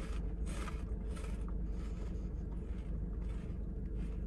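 Someone chewing crunchy green pea snack crisps with the mouth closed, a soft crunch about every two-thirds of a second, over a steady low hum inside a car.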